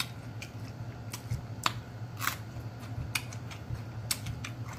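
Close-miked eating mouth sounds: irregular wet lip smacks, finger licking and chewing clicks, roughly two a second.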